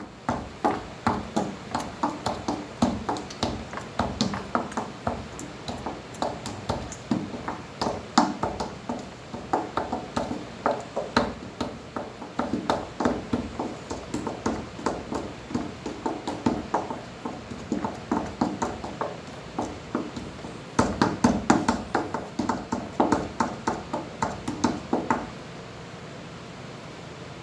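Repeated punches on a punching bag, dubbed-in sound-effect hits coming about three to four a second, loudest about three-quarters of the way through and stopping shortly before the end.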